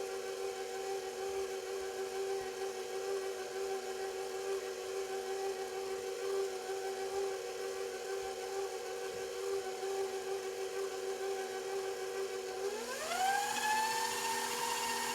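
KitchenAid stand mixer motor running steadily at low speed while blending thick cake batter. About 13 seconds in, the speed is turned up and the whine rises in pitch and holds higher.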